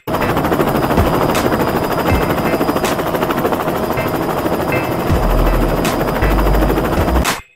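Small DC motors spinning the twin cardboard rotors of a homemade Chinook model: a loud, rapid fluttering buzz with a steady whine running through it. A low rumble comes in around five seconds in.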